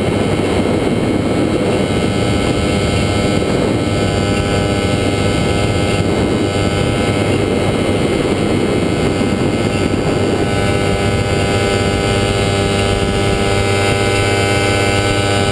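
Falcon XP ultralight's engine and propeller running steadily in flight, with the rush of wind over the open seat. The engine note changes and becomes steadier about ten seconds in.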